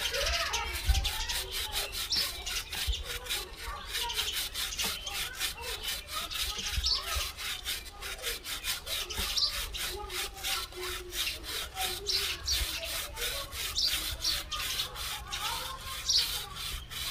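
Stiff-bristled three-sided chain brush scrubbing a Royal Enfield Meteor 350's cleaner-soaked drive chain. It makes quick, even back-and-forth strokes, several a second, to loosen old grime and lube from the links.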